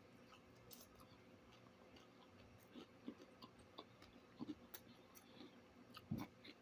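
Faint chewing with scattered small mouth clicks and smacks, a person eating.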